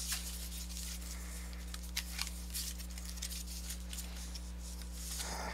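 Pokémon trading cards being slid and flicked through in the hands one after another: faint scattered card clicks and rustles over a steady low hum.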